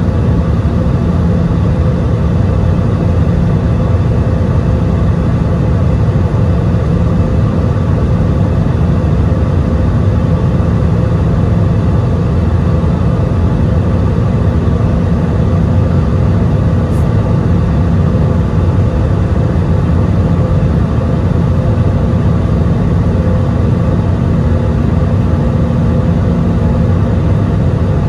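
Steady in-cabin noise of an Airbus A320-200 climbing: the low rumble of engines and airflow heard from a seat over the wing, with a few steady humming tones running through it.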